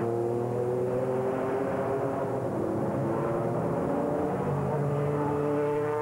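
Toyota GT-One race car's twin-turbo V8 running hard at high revs as it accelerates, its note climbing slowly and steadily in pitch.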